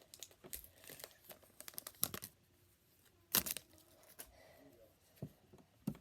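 Foil Pokémon card booster-pack wrapper crinkling and being torn open by hand, in a series of sharp crackles with the loudest rip about three and a half seconds in.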